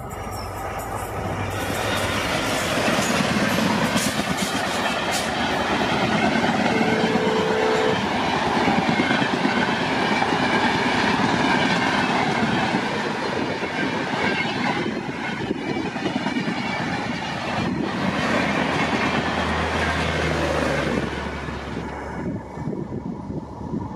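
Diesel-hauled passenger express passing close by: the WDP4D diesel locomotive, then the long rake of coaches rushing past with wheels clattering on the rails. The noise falls away near the end as the train recedes.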